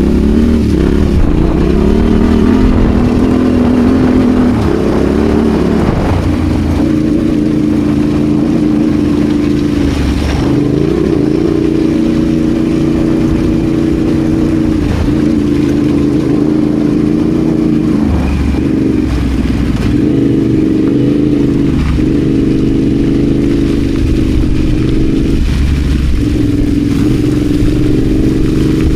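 Adventure motorcycle engine running under way off road, its revs rising and falling over and over as the rider works the throttle and changes gear.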